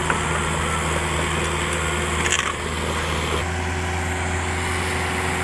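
Caterpillar 305.5E2 mini excavator's diesel engine running steadily with a low drone. Its hum shifts slightly a little past halfway.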